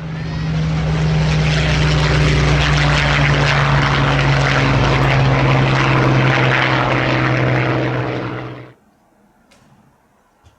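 Boeing 747-400 freighter's four jet engines passing low overhead on approach: a loud, steady rush with a low hum under it, cutting off suddenly near the end.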